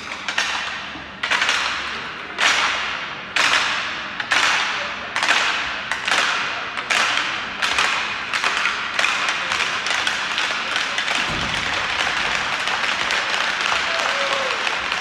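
A crowd clapping together in unison in an echoing hall, slow at first (about one clap a second) and speeding up until the claps run together into continuous applause, like a Viking thunderclap.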